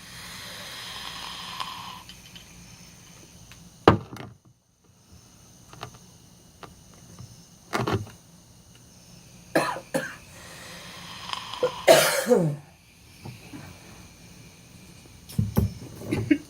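A man coughing repeatedly, with a sharp, loud cough every few seconds, one of them near the middle with a voiced, falling tail. A soft breathy hiss is heard over the first two seconds.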